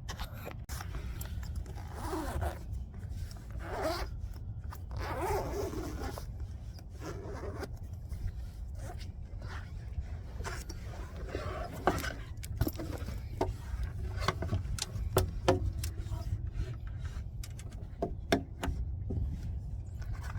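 A zipper being pulled open in several strokes, amid scraping and rustling handling noise and short clicks, over a steady low rumble.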